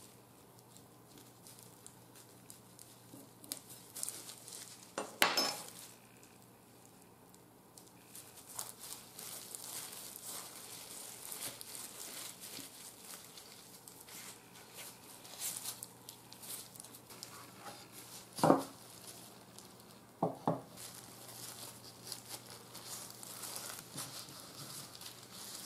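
Plastic cling film crinkling and rustling under gloved hands, with a few sharp knocks of wood and utensils: one about a fifth of the way in, the loudest about three-quarters through, then a quick double knock.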